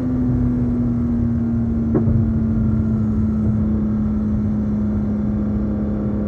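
BMW E46 M3's straight-six running through a Supersprint exhaust at steady revs, its note sinking slowly as the revs ease off, over a low rumble. A brief tick about two seconds in.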